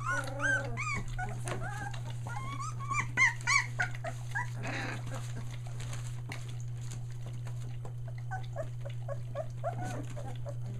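Three-week-old Australian Shepherd puppies crying and whimpering: many short, high rising-and-falling cries, busiest and loudest in the first four seconds, then a quieter run of little cries near the end, over a steady low hum.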